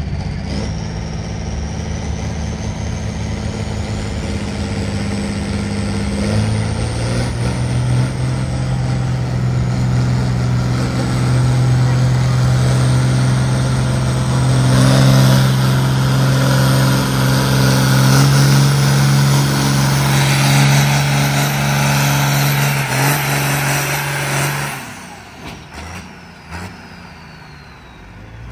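John Deere diesel tractor under full load pulling a weight-transfer sled, its engine running hard with a thin high whine above it and growing louder as it comes past. The engine note drops away suddenly near the end as the pull finishes.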